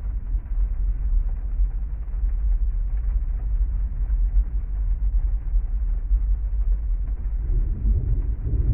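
Storm ambience: a steady, muffled low rumble of heavy rain and thunder, swelling near the end.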